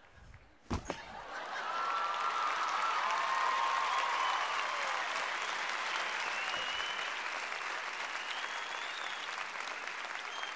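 A single thump, then a large audience breaks into applause that swells within a second and holds steady, with a few whistles and cheers over it.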